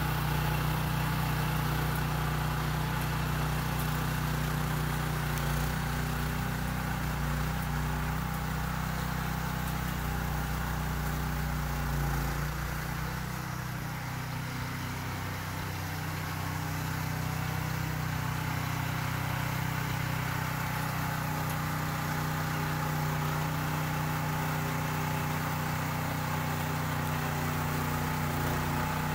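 Small gasoline engine of a rear-tine rototiller running steadily while it tills soil. The deep low rumble falls away about halfway through and the level dips briefly before coming back.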